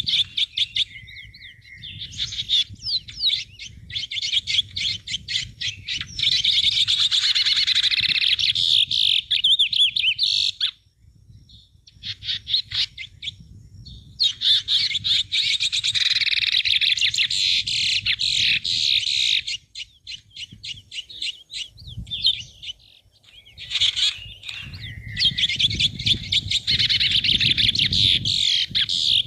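Small birds chirping and twittering rapidly in dense, overlapping bouts, with short lulls about a third and two-thirds of the way through.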